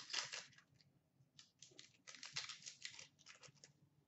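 Hockey trading cards being flicked through and slid against one another in the hands: two spells of quick, faint rustling scrapes, a short one at the start and a longer one from about a second and a half in.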